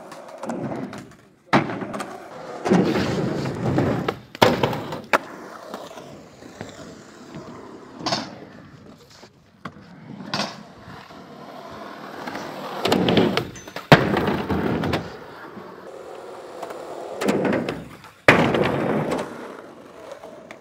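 Skateboard wheels rolling over concrete in stretches, broken by several sharp clacks of the board hitting the ground, the loudest about two-thirds of the way through.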